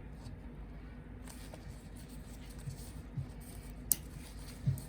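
Plastic model kit parts being handled and pulled apart, with one sharp click about four seconds in and a few soft low thumps.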